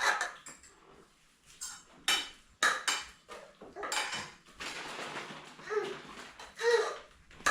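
Dishes and cutlery clinking and clattering in a handful of separate knocks while food is dished up and packed.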